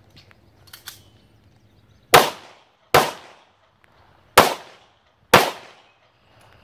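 Four handgun shots fired at an uneven pace: two about a second apart, a pause of over a second, then two more about a second apart. Each shot trails off in a brief echo.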